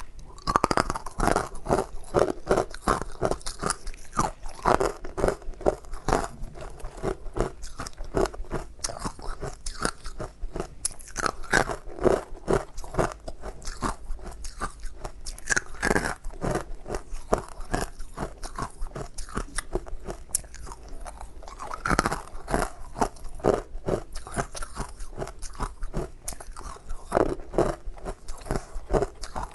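Ice being bitten and chewed close to the microphone: a continuous run of sharp, irregular crunches.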